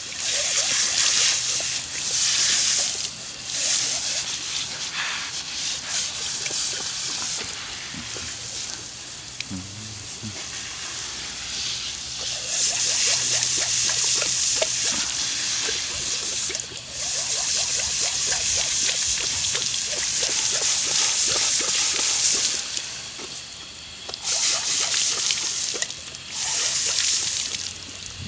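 Garden hose spray nozzle hissing as its jet splashes into a Saint Bernard's mouth while the dog snaps and laps at the water. The hiss fades and comes back several times, with wet splatters and gulping throughout.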